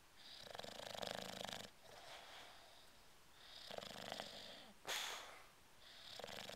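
English Bulldog snoring in deep sleep, a separate snore on each breath every second or two. About five seconds in there is one short, sharper burst.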